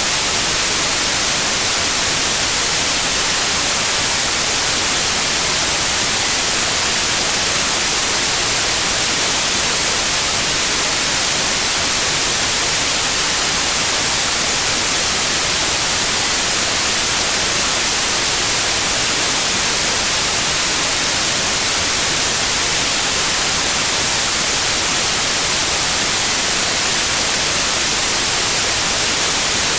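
Synthetic white noise for tinnitus therapy, a steady even hiss throughout. A pure high-pitched tone at 9645 Hz joins it about two-thirds of the way in and holds steady.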